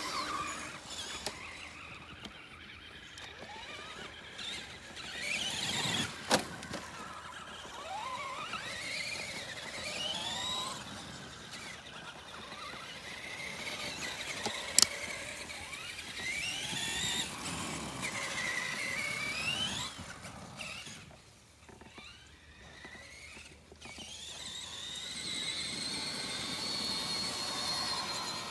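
Electric RC monster trucks' motors whining, their pitch rising and falling again and again as the trucks accelerate and slow. Two sharp clicks, about six and fifteen seconds in, are the loudest moments.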